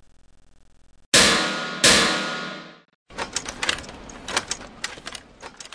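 Two heavy metallic clunks about three-quarters of a second apart, each ringing out: big stage spotlights switching on. They are followed by a couple of seconds of irregular crackling and snapping.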